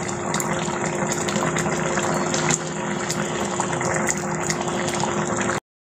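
Fish-and-taro curry boiling hard in a pot: a steady bubbling hiss with small crackles and a steady low hum under it. It cuts off suddenly near the end.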